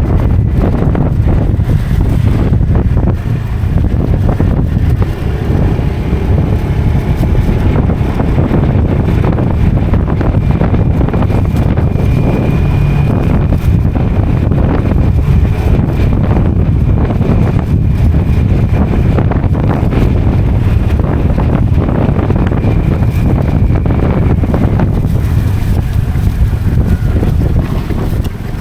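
Motorcycle riding along a road, with heavy wind buffeting on the microphone over a steady engine and road rumble.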